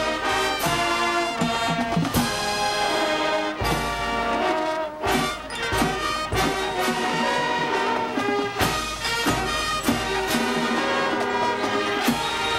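High school marching band playing its field show: brass chords held and moving over percussion, with sharp drum and cymbal hits several times.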